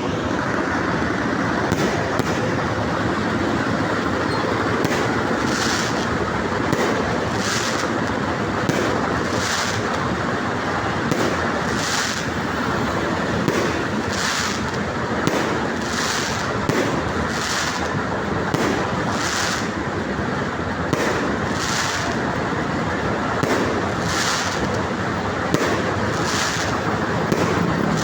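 Fireworks going off: a dense, continuous crackle with sharp bangs about once a second.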